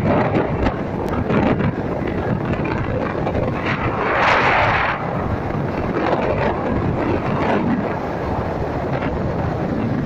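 Wind buffeting the microphone on a moving motorbike, over the bike's engine and tyre noise. A louder rush of wind comes about four seconds in.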